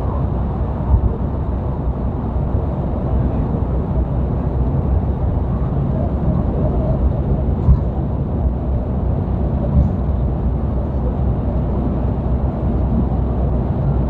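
Steady in-cab drone of a new truck cruising at highway speed: low engine hum under road and tyre noise, with no change in pace.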